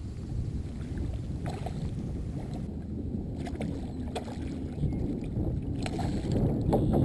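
Wind rumbling on the microphone around a kayak, with a few sharp clicks, and a splash near the end as the hooked snook thrashes at the surface beside the boat.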